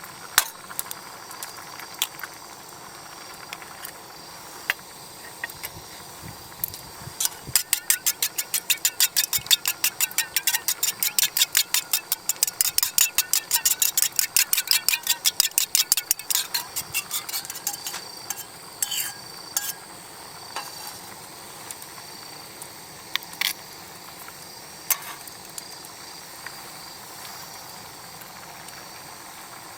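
A fast, even run of light clicking taps, about six or seven a second, lasting roughly ten seconds, with a few single clicks before and after.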